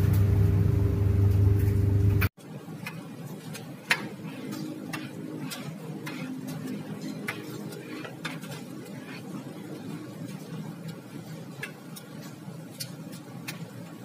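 Gas clothes dryer running with its burner lit and burning normally. A loud steady hum cuts off abruptly about two seconds in. After that comes a quieter steady hum with irregular sharp ticks.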